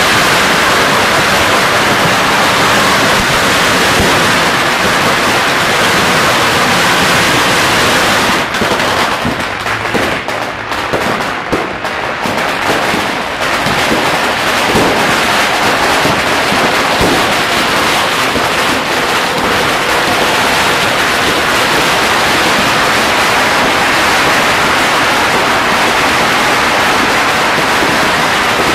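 Firecracker strings and fireworks exploding in a dense, continuous rapid crackle. About nine seconds in it thins for a few seconds to scattered separate bangs, then goes dense again.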